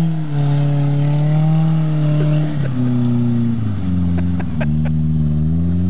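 Mazda B2600 pickup's four-cylinder engine revving under heavy load as the truck churns through deep mud. The engine note sags a few times and climbs again near the end, with a few sharp clicks a little after the middle.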